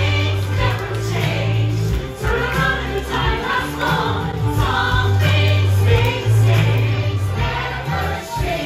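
Amplified show song: several voices singing over a backing track with a strong, sustained bass, played through a dining room's sound system.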